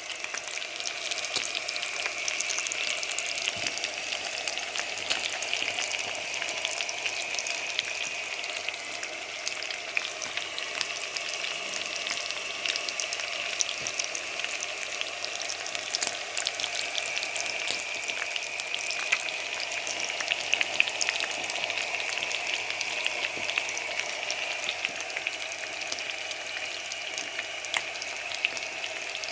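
Chicken frying: a steady sizzle with many small crackles and pops.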